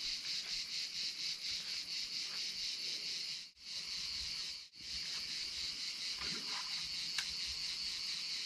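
Crickets chirping in a steady, high, fast-pulsing trill. The sound cuts out briefly twice near the middle.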